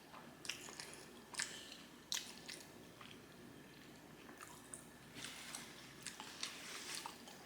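A mouth chewing spaghetti in meat sauce: soft, scattered wet smacks and clicks, coming thicker over the last few seconds.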